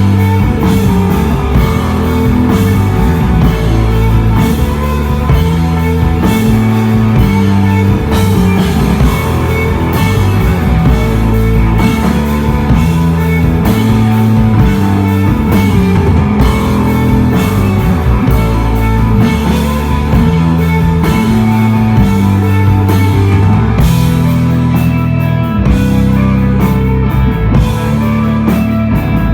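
Live instrumental desert rock band playing loudly: electric guitar, a bass line stepping between notes, and a drum kit.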